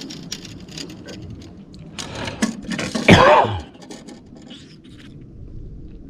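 Light knocks and scrapes as a small hooked fish is handled over a wooden boat's plank deck, with a short, loud human grunt about three seconds in that drops in pitch.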